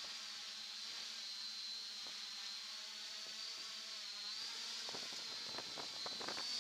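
Multirotor's electric motors and propellers buzzing with a steady high whine, heard from the aircraft's own on-board camera microphone. A run of clicks and knocks comes in the last couple of seconds.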